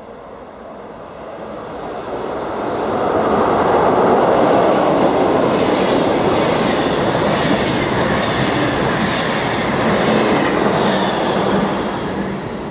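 A train passing on the railway line, its rail and wheel noise swelling up, holding loud for several seconds, then fading away.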